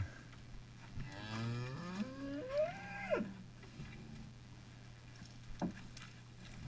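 A beef cow mooing once: a call of about two seconds that rises in pitch and then breaks off.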